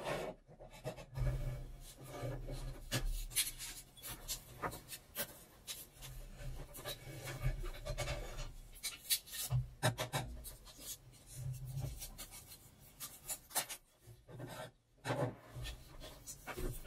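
Hands working a film negative into a darkroom enlarger: a steady run of rubbing, scraping and light clicks, with a short lull near the end.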